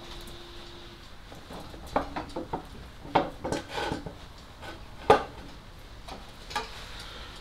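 Metal clinks and knocks of tools and bolts being handled during engine-mount work: a scattered run of clicks, then one sharp louder knock about five seconds in and a lighter one near the end.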